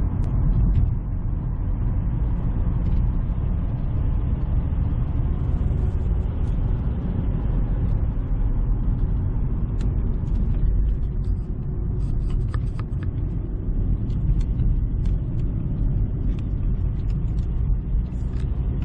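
Road and engine rumble inside a moving car's cabin: a steady low drone from the engine and tyres, with a few faint small clicks and rattles.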